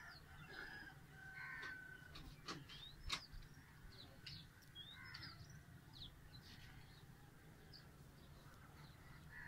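Faint dawn birdsong: many short, quick chirps from several birds, with a few lower calls mixed in over a faint steady low hum. A sharp click about three seconds in is the loudest moment.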